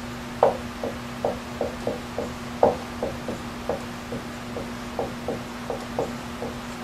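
Dry-erase marker writing on a whiteboard: a quick, irregular run of short squeaks and taps, about three a second, as letters are drawn, over a steady low hum.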